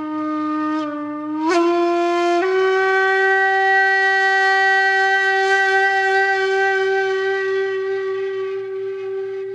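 A long held horn-like tone, rich in overtones. It steps up in pitch twice in the first couple of seconds, then holds one note and slowly fades.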